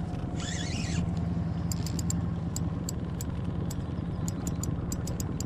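Steady low hum of a boat's motor running. A short high warble comes just under a second in, then a string of sharp, high clicks, irregularly spaced, through the second half.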